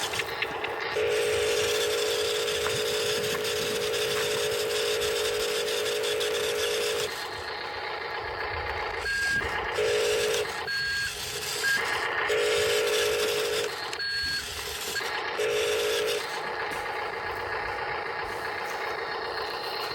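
Radio-controlled construction models working, their electric motors and gearboxes whirring. A steady buzzing tone cuts in and out in stretches, a long one over the first seconds and shorter ones later. A few short high beeps come near the middle.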